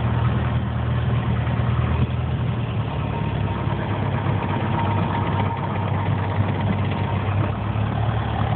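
Light aircraft's piston engine droning steadily at low power, heard from inside the cabin as the plane rolls along the ground.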